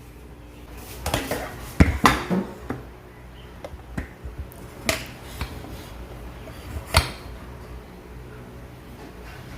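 Eating and tableware handling: a quick run of clicks and clatters about a second in, then a few single sharp clicks.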